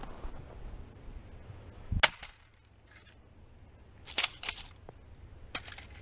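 A SOG Tactical Tomahawk chopping into the metal casing of a computer disk drive set on a wooden stump: one hard, sharp strike about two seconds in. Shorter metallic clatters follow near four seconds and again near the end as the drive and the blade lodged in it are handled.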